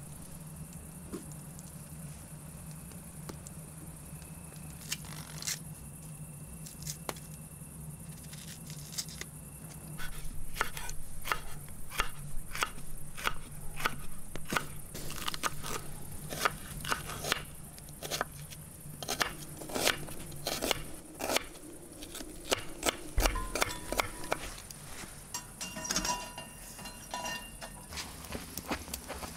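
Knife cutting green peppers on a wooden cutting board: a run of sharp knocks, several a second, starting about ten seconds in and easing off after about twenty seconds, over a steady low hum.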